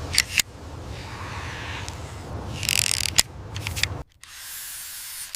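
A few sharp clicks and taps with a short scraping rustle, over a steady low rumble and hiss, from hand work with tools. About four seconds in the sound cuts to a thinner hiss.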